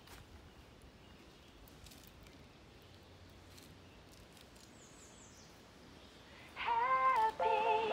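Quiet outdoor background with a few faint, high, falling chirps about five seconds in. Background music then starts suddenly near the end with a bright, pitched melody and is the loudest sound.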